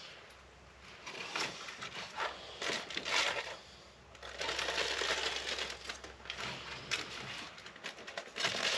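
Aluminium foil crinkling and tearing in irregular bursts as the puffed foil dome of a stovetop popcorn pan is torn open by hand.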